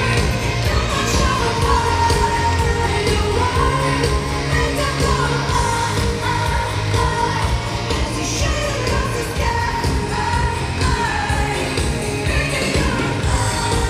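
Live pop song performed in an arena: a female lead vocal over a band with heavy bass, loud and steady throughout.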